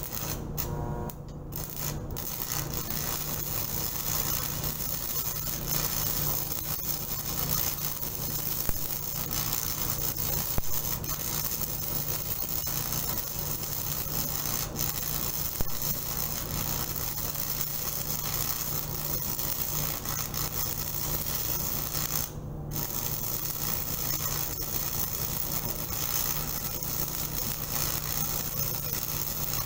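Stick welding arc crackling and sizzling steadily as a weld bead is run on steel. It catches in a few short stutters at first and breaks off briefly about 22 seconds in, over a steady low hum.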